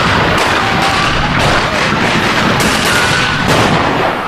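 Harsh, loud creature sound effect: a dense wall of crackling noise with many rapid sharp cracks and faint gliding whistles through it.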